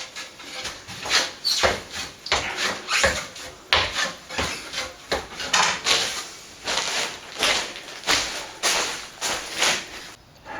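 Hand tool scraping against a plaster vent casting in short, irregular strokes, about two a second, as the casting's rough flash is dressed off or the vent is fitted into place.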